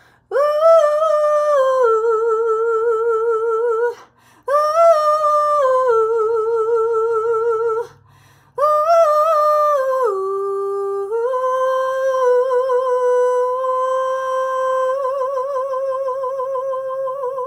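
A woman singing a cappella in three long phrases with vibrato. The first two phrases match, each starting high and stepping down to a held note; the third dips briefly and then holds one note for about six seconds.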